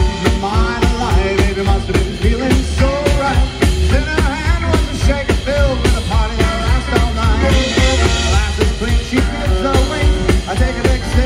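Live swing band playing an up-tempo number, with a steady drum-kit beat under a gliding melody line.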